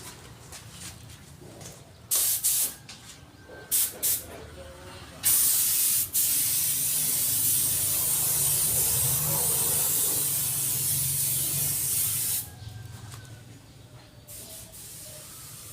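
Hissing spray from a nozzle: four short bursts, then one long steady spray of about seven seconds with a brief break near its start.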